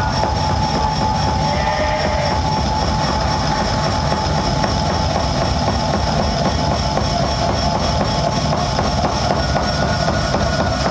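Loud live electronic music: a dense rumbling low noise bed under steady drone tones. The drones shift over time, and a new higher tone enters near the end.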